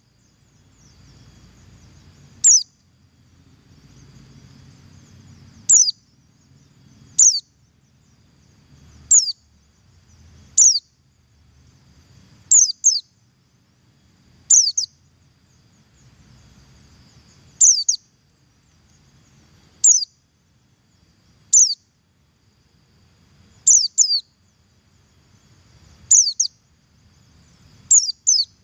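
White-eye (pleci, buxtoni type) giving its double call: short, high, down-slurred notes, mostly in quick pairs, repeated about every one and a half to two seconds. This is the call used as a lure to get other white-eyes to start calling. A faint low rumble runs in the gaps between calls.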